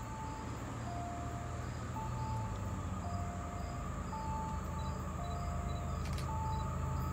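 Distant approaching train's diesel locomotives, a low rumble growing steadily louder. A two-note high-low tone repeats about every two seconds over it.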